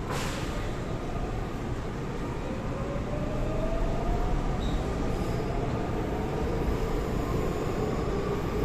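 Seoul Line 4 4000-series electric train (Daewoo–Alstom GTO-VVVF) under way, its inverter whine rising steadily in pitch as the train gathers speed over the rumble of wheels on track. A brief sharp click sounds right at the start.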